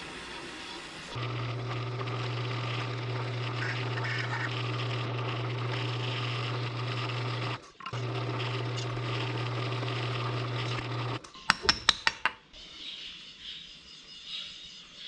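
Drill press motor running steadily while it drills pin holes through wooden knife-handle scales. The motor cuts off about eleven seconds in, and a quick run of sharp clicks follows.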